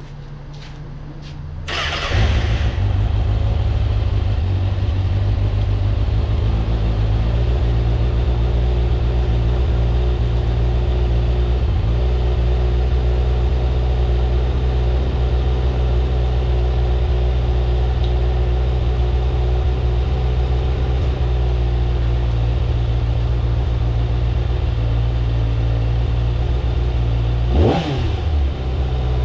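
2024 Kawasaki ZX-6R's 636 cc inline-four on its stock exhaust, started from cold: the engine catches about two seconds in and idles steadily. It is revved a couple of times near the end.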